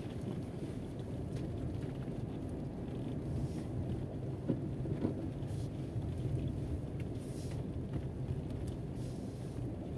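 Car engine running at low speed as the car rolls over a rough dirt forest track, a steady low rumble heard from inside the cabin, with a couple of small knocks about halfway through.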